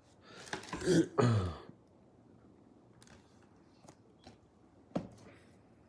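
A man clears his throat once, loudly and briefly, his voice falling in pitch. A few light clicks and knocks from something being handled follow.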